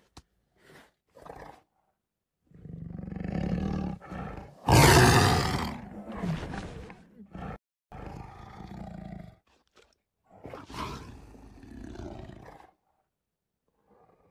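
Tiger roaring and growling: a series of rough growls over about ten seconds, the loudest roar about five seconds in, followed by shorter growls.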